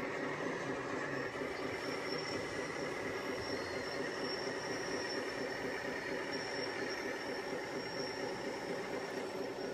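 Radio-controlled construction models running: a steady whine from small electric motors and gearboxes over a constant mechanical hum, with no change in pace.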